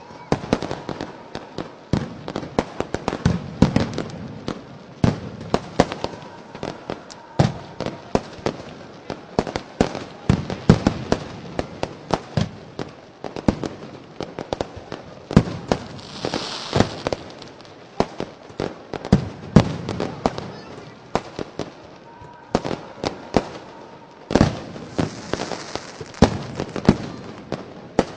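Fireworks and firecrackers going off in rapid, irregular succession as sharp bangs and cracks. A hissing burst comes about sixteen seconds in and another near the end.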